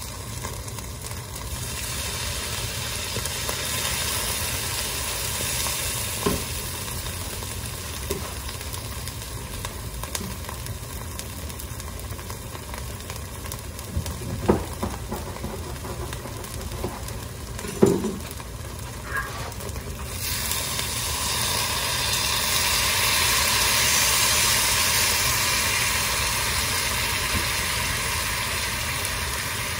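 Tomato paste frying in a non-stick pan, sizzling steadily with a few short knocks. About two-thirds of the way in the sizzle grows louder and brighter as lemon juice is squeezed into the hot paste.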